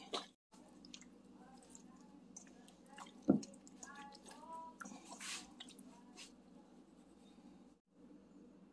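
Wet squishing as a hand kneads raw chicken pieces into a creamy marinade in a glass bowl, with one thump a little over three seconds in and a low steady hum underneath.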